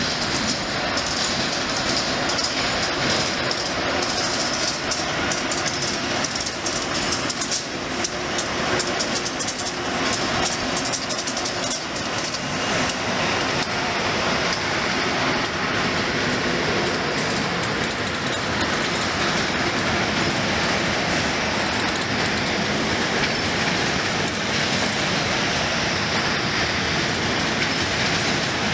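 SEPTA Regional Rail push-pull train's passenger coaches rolling past at low speed with a steady rumble of wheels on rail. Rapid clicks of the wheels crossing switches and rail joints run through the first half and thin out later.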